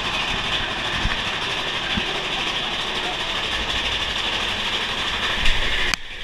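Big Thunder Mountain Railroad mine-train roller coaster running along its track: a steady rushing rumble of the cars on the rails, with a few low knocks. The noise drops away abruptly near the end.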